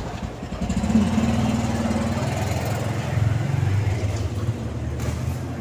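Small underbone motorcycle engine running, with a rise in engine note about a second in, then settling to a lower steady note.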